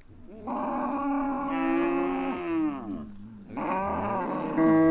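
Cows mooing: one long, drawn-out moo that sags in pitch as it ends, then a second long moo starting about three and a half seconds in.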